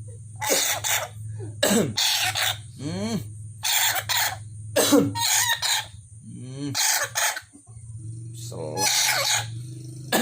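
A pet lory making harsh coughing, choking-like calls, a series of about six rough bursts, several with falling squeals, imitating a person choking.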